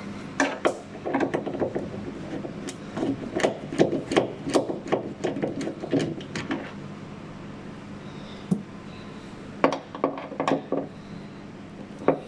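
Irregular clicks and knocks of hand tools and plastic and metal car parts being handled, over a steady low hum. The knocking is dense for the first six seconds or so, then comes in a few shorter clusters after a pause.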